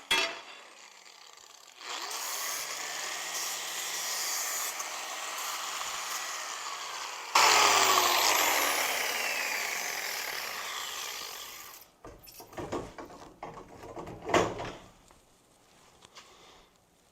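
A handheld power tool running steadily, then louder for a moment and winding down with a falling pitch. After that come several sharp metallic clanks and knocks.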